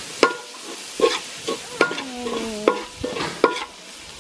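Spoon stirring onions, tomatoes and spices frying in butter in an aluminium pot: a light sizzle with several sharp, ringing clinks as the spoon strikes the pot.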